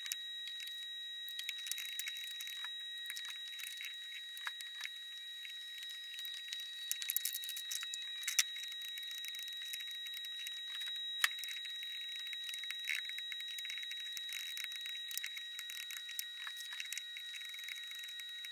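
Sped-up kitchen food-prep sounds: quick, irregular clicks and taps of a knife on a plastic cutting board, with the odd clink, over a steady high whine.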